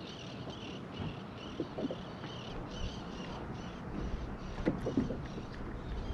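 Water lapping against a fishing kayak's hull, with a rapid repeating high-pitched whir over the first half and a few light knocks.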